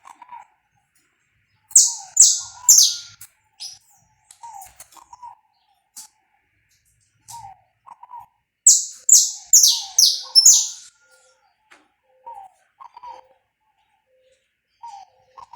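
Saffron finch singing: two loud phrases of four or five quick, high notes that sweep downward, about two seconds and nine seconds in, with soft lower chirps repeating in between.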